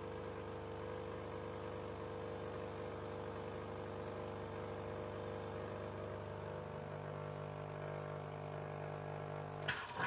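Rancilio Silvia Pro espresso machine's pump running steadily against a blind filter during a backflush with a group-cleaning tablet. Its tone shifts about two-thirds of the way through, and it stops near the end with a brief rush of noise.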